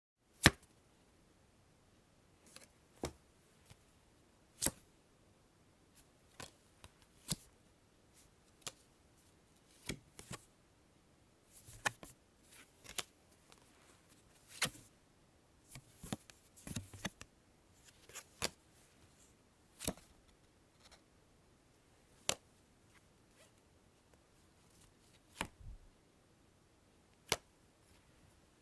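Playing cards drawn one at a time from a deck: a long irregular series of short sharp snaps and flicks as each card slides off and is put down, some coming in quick little clusters.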